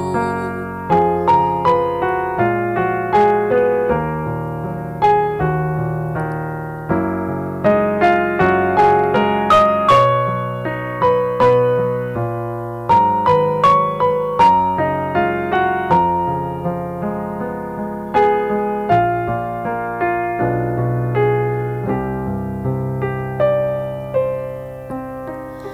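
Piano accompaniment of a slow pop ballad playing an instrumental interlude without the singer: struck notes and chords a few per second, each ringing and dying away.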